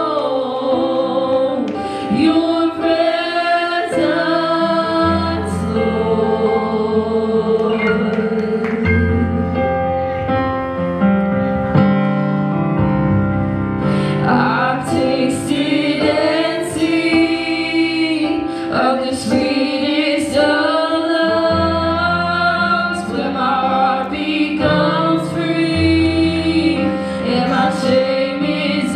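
Two women singing a slow worship song into microphones, with electric keyboard accompaniment of held chords and low bass notes.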